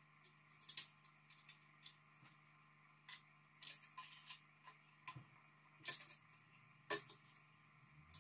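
Light metallic clicks and taps as parts are handled and fitted on an air compressor's pump head, scattered and irregular, with one sharper clink near the end that rings briefly.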